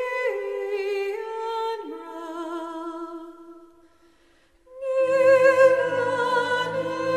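Background music: a held, wavering melody fades out about four seconds in, and a new song with a bass line starts almost at once.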